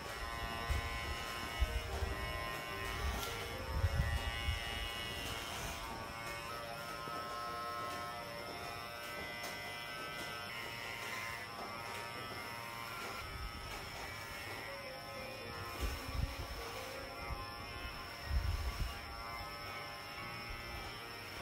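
Electric hair clippers buzzing steadily as they cut a man's hair short, with a few low thumps of handling.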